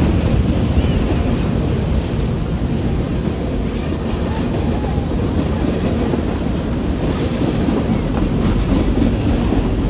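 A mixed freight train of covered hoppers, tank cars and flatcars rolling past, its steel wheels on the rails making a steady, loud rumble.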